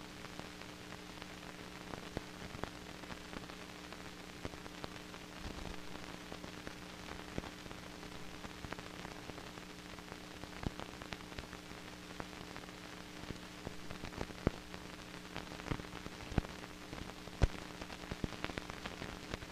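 Old film soundtrack noise with no programme sound: a steady hum and hiss, with scattered crackles and pops that come more often in the second half, the loudest pop near the end.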